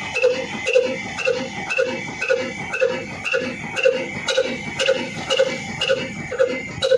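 Slow-running horizontal single-cylinder diesel engine with a heavy flywheel, ticking over at an even beat of about two exhaust pulses a second, each with a sharp mechanical click.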